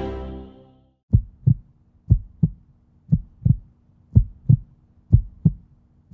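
Background music fading out in the first second, then a heartbeat sound effect: low double thuds, lub-dub, repeating about once a second.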